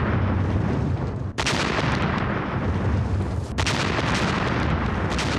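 Heavy artillery firing: a loud, continuous blast and rumble, with fresh shots cracking in about a second and a half in, again at about three and a half seconds, and a short sharp crack near the end.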